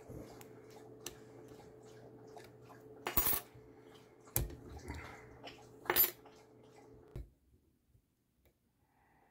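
Small metal parts clinking and clattering on a hard surface: four sharp clinks over a steady low hum, which cuts off about seven seconds in.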